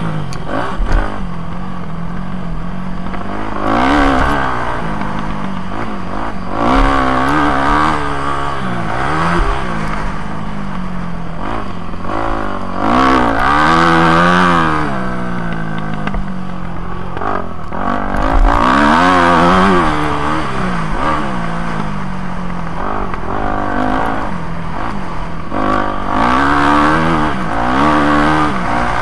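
Yamaha motocross bike's engine, heard on board, revving up and easing off again and again as it rides a dirt track, its pitch climbing and dropping about five times.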